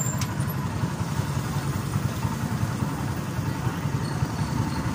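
Small motorcycle engine of a sidecar tricycle running steadily at low speed, heard from inside the sidecar.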